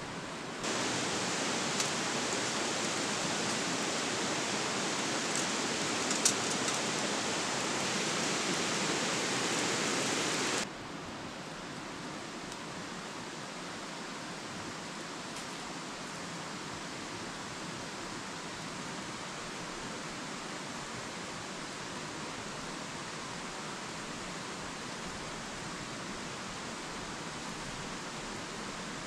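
Steady rush of a shallow stream running over rocks. For about the first ten seconds a louder hiss with two sharp pops sits over it, starting and stopping abruptly.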